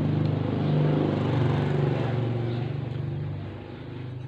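A vehicle engine passing by, getting louder and then fading away.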